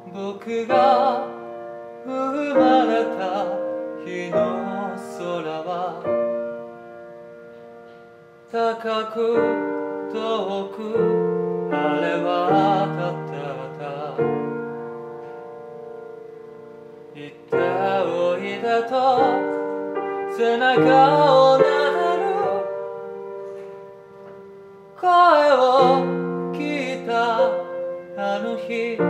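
A man singing in Japanese while accompanying himself on a grand piano, in phrases separated by short quieter lulls.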